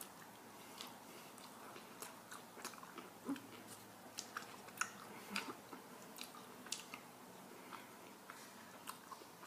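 A person chewing a mouthful of a wrap close to the microphone: soft, irregular wet clicks and smacks of the mouth, a few of them louder.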